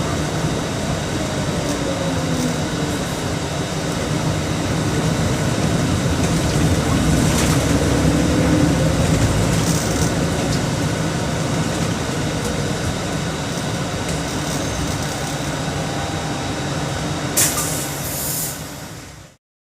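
Mercedes-Benz OM 457 LA six-cylinder inline turbocharged diesel of an O-500MA city bus running under way, a steady heavy rumble whose pitch rises and falls gently. A short hiss comes near the end, and then the sound cuts off abruptly.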